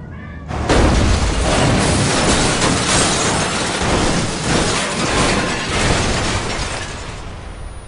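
Car crash: a sudden loud impact about half a second in, then several seconds of a car rolling over, with repeated crunching impacts and scraping, dying away near the end.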